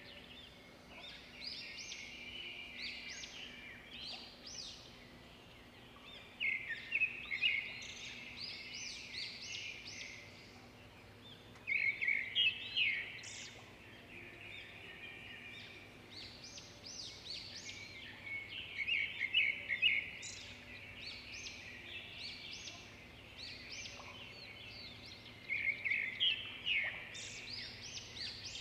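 Woodland songbirds singing: one bird repeats a short, fast phrase of rapid notes every six or seven seconds, with fainter chirping from other birds between its phrases.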